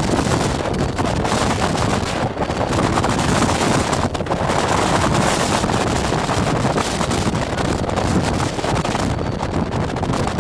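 Strong gale buffeting the microphone: a loud, steady rushing roar of wind noise that flutters and gusts throughout.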